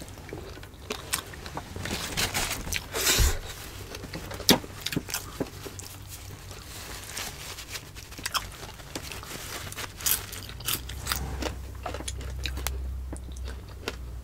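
Close-miked eating sounds: chewing and mouth smacks with scattered sharp clicks and taps as stewed beef is picked from a glass dish by hand. There is a short noisy stretch about two to three seconds in.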